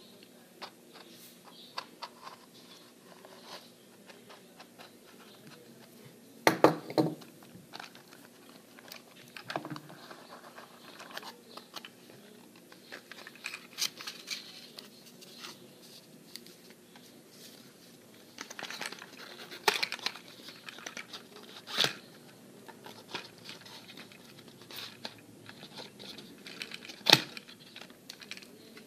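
Cardboard and plastic toy packaging being handled and torn open: irregular crinkling, tearing and scraping, with a few sharper knocks and snaps about a quarter of the way in, two-thirds through and near the end.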